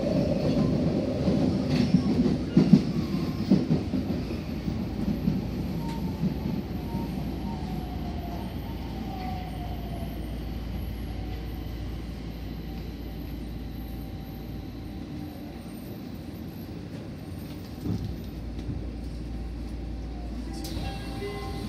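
Nagoya Municipal Subway N1000-series train running on the rails, a steady low rumble. It is louder and rougher in the first few seconds, with a few sharp knocks, then settles. A faint falling tone comes in around a third of the way through.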